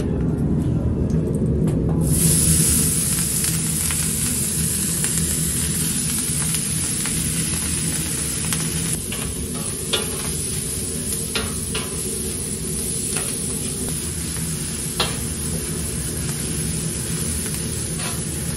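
Diced meat sizzling on a large round steel griddle, the sizzle swelling about two seconds in, over a steady low hum. From about nine seconds on, a long metal spatula scrapes the meat about and knocks against the plate in sharp clicks now and then.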